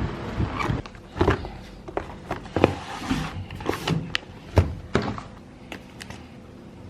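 Irregular knocks and thumps, about a dozen over six seconds, each short and sharp, then only a low steady background.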